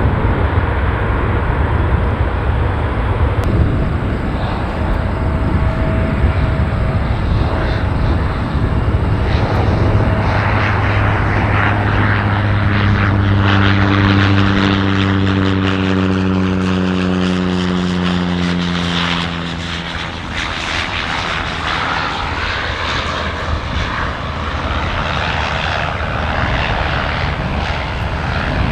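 Engine noise of an airliner passing close by: a steady loud rush, with a humming tone through the middle that slides slowly lower in pitch as the aircraft goes past.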